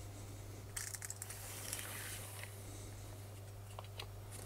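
Soft rustling and a few light clicks of recording tape and a tape measure being handled, with a cluster of clicks about a second in and single ticks near the end, over a steady low electrical hum.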